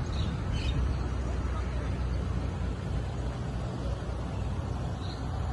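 2012 Mercedes-Benz E250 saloon moving slowly at low speed, giving a steady low rumble of engine and tyres.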